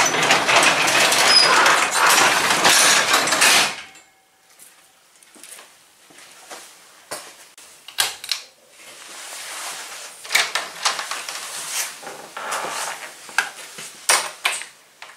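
Roll-up garage door pulled down by hand, rattling loudly along its tracks for about four seconds and stopping abruptly as it shuts. After that, scattered quieter clicks and knocks of handling.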